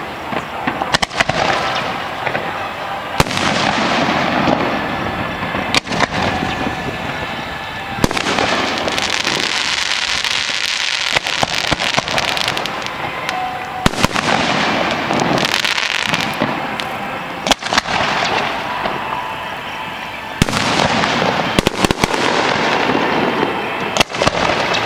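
Aerial fireworks display: shells launching and bursting in a dense string of sharp bangs, with a continuous hiss filling the gaps between them.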